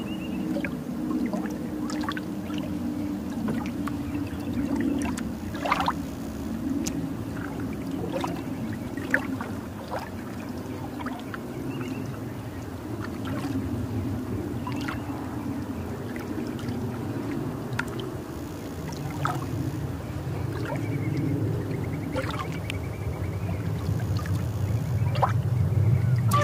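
Boat underway on a river: water splashing and gurgling against the hull over a low steady drone, with short splashes now and then. The drone grows louder over the last few seconds.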